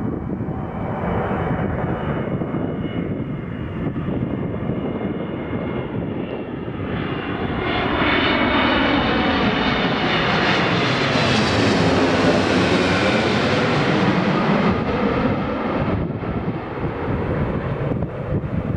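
Boeing 777-200ER twin jet engines on landing approach passing low overhead: a steady high fan whine at first, then the jet noise swells about eight seconds in into a loud rush with a sweeping, phasing quality as the aircraft crosses above, and eases off after about sixteen seconds as it moves away.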